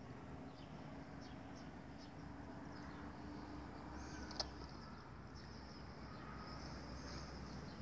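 Faint outdoor ambience of insects chirring, thin and high, with a single sharp click about four and a half seconds in.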